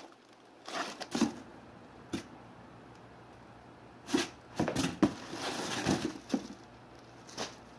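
Plastic wrapping rustling and crinkling while items are handled and pulled out of a package, in short scattered rustles, busiest a little past the middle.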